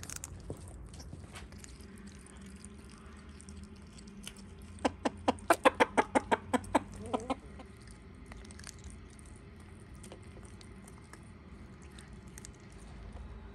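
A hen clucking: a quick run of about a dozen short clucks, about five a second, lasting some two and a half seconds in the middle.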